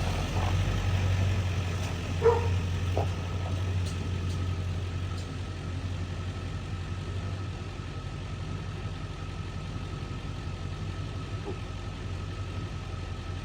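Tractor engine running steadily with a low hum and a faint steady whine, slowly getting quieter. A single short, sharp sound stands out about two seconds in.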